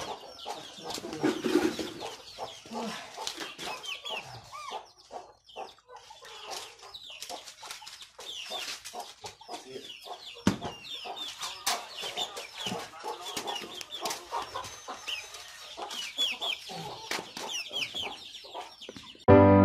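Chickens clucking: many short high calls, with scattered sharp clicks. A piano tune cuts in at the very end.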